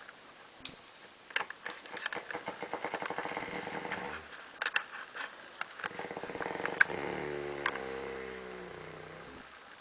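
A man snoring: two long rattling snores, the first starting about a second and a half in and the second from about six seconds in, fading out near the end. A few sharp clicks are scattered through it.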